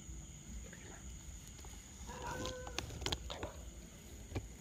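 A short animal call about two seconds in, over a faint steady night background, followed by a few sharp clicks.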